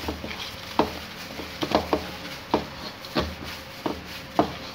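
A plastic-gloved hand kneads a spiced chapli kabab mince mixture in a steel bowl. It makes irregular squishy slaps and knocks, a little under two a second.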